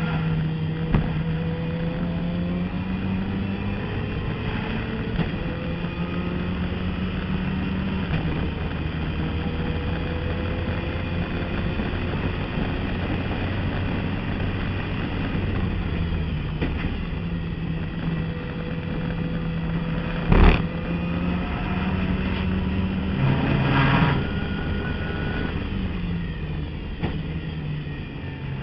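Turbocharged race car's engine heard from inside the cockpit under hard acceleration, its pitch climbing through the gears and dropping at each change, then falling away under braking. A single sharp bang about twenty seconds in stands out above the engine.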